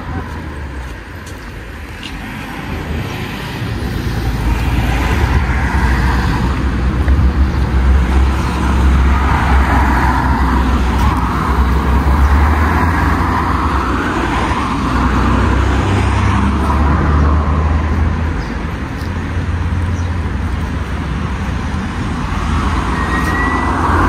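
Road traffic: cars passing one after another, their tyre and engine noise swelling and fading over a steady low rumble, getting louder about four seconds in.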